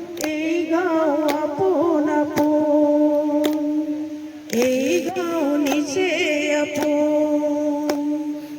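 A voice singing long, wavering held notes, with a sharp tick about once a second as a slow beat. The song breaks off briefly about halfway through.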